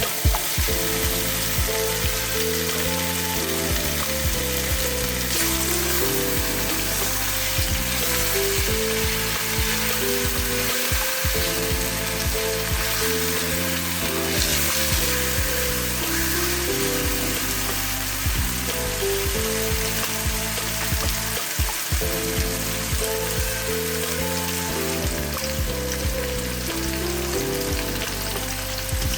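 Pork tenderloin frying in oil in a pan, with a steady sizzle throughout, over background music with a melody.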